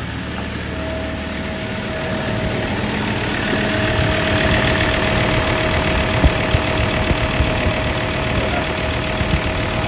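Ford Ranger 3.2 five-cylinder turbodiesel idling with the aircon switched on, a steady faint whine over the engine noise, growing a little louder over the first few seconds. The A/C compressor clutch is not engaging.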